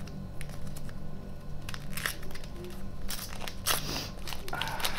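A chocolate candy's wrapper crinkling as it is unwrapped by hand: sparse crackles at first, then several bursts of rustling from about a second and a half in.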